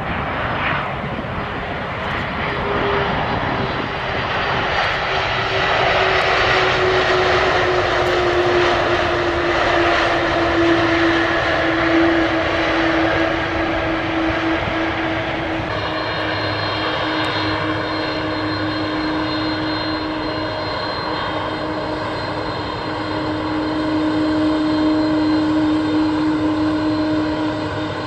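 Airbus A300-600ST Beluga's twin turbofan engines whining as the aircraft rolls along the runway after landing, the main tone sinking slowly in pitch. About halfway through the sound changes abruptly, after which a steady whine with several higher tones holds.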